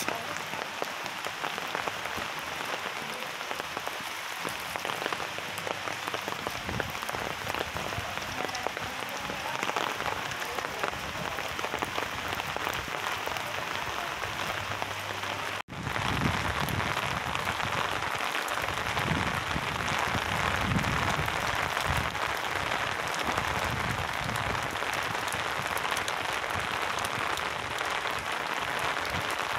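Rain falling on a wet paved street, an even hissing patter. It breaks off for an instant about halfway through and comes back louder.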